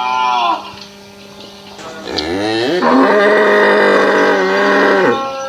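Cow mooing: the tail of a short call at the start, then one long moo about two seconds in that rises in pitch and is held for about three seconds.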